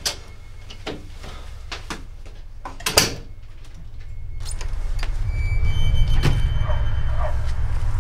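Front door latch clicking, then the door shutting with a sharp bang about three seconds in. After that a low rumble builds up and holds steady.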